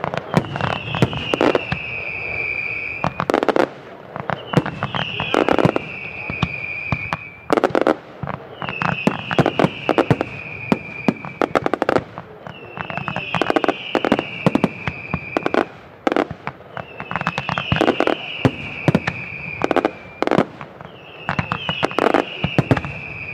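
Fireworks display: rapid bangs and crackle from aerial shells and salutes bursting. Over it, a high whistle-like tone falls slightly in pitch over about two seconds and recurs about every four seconds.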